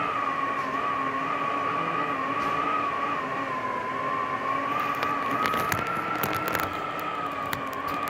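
Heavy gusty wind howling with a high, wavering whistle that holds a steady pitch and wobbles as the gusts rise and fall. A burst of sharp rattling clicks comes about five to six and a half seconds in.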